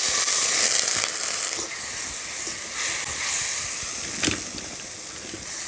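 Water just poured into hot oil and spice masala in a kadai sizzling and hissing hard, the hiss slowly dying down as the water boils off. A metal spatula knocks against the pan a couple of times as it stirs.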